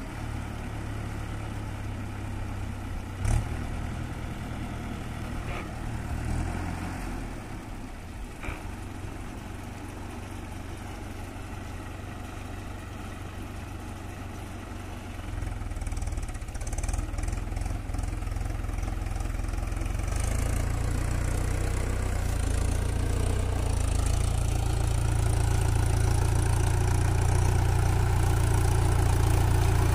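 Farm tractor's diesel engine running steadily as it drives through a flooded paddy field on iron cage wheels, growing louder over the second half as it comes closer. A single brief click about three seconds in.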